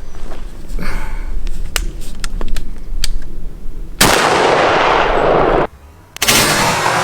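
Several sharp cracks like gunshots from a 12-gauge shotgun firing buckshot. About four seconds in, a loud steady rushing noise starts abruptly; it cuts out for half a second near the end, then resumes.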